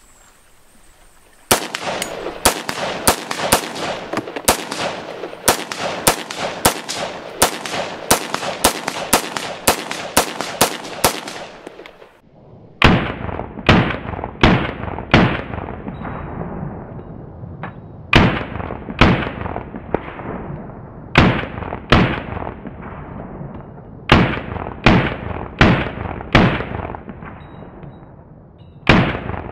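Semi-automatic AR-15 rifle fitted with a Sharps Rifle Company Relia-Bolt being fired: a fast string of shots, about two or three a second for roughly ten seconds, then after a short pause slower shots spaced about a second apart in small groups, each with an echoing tail. These are the first shots with the new bolt, and it cycles without a stoppage.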